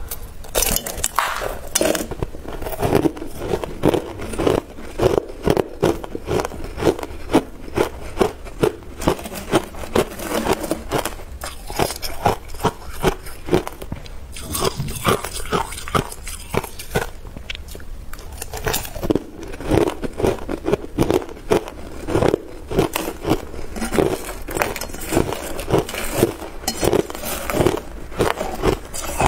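Hard clear ice being bitten and crunched between the teeth, a run of sharp crunches about two a second. Midway the crunching thins out, with scraping and clinking of ice against a steel spoon and bowl.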